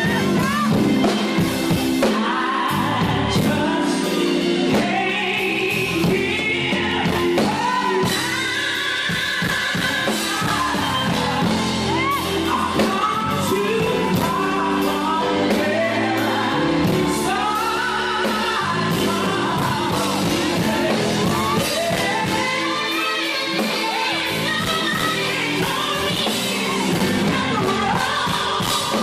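A woman sings gospel into a handheld microphone over instrumental backing, with sliding vocal runs.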